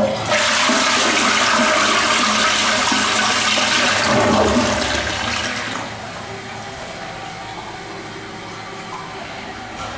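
Older Eljer Patriot tank toilet flushing: a loud rush of water through the bowl for about six seconds, then a drop to a quieter, steady hiss of water as the tank refills.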